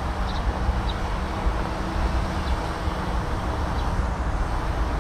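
Wind rumbling on the microphone outdoors, steady throughout, with a faint hum under it and a few short high chirps.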